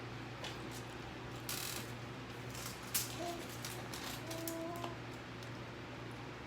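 Scattered small clicks and taps from food and tableware being handled at a meal, one sharper click about three seconds in, over a steady low hum.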